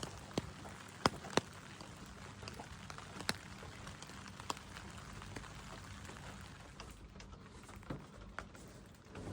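Sparse, irregular sharp clicks and taps, about a dozen, over a low steady hiss.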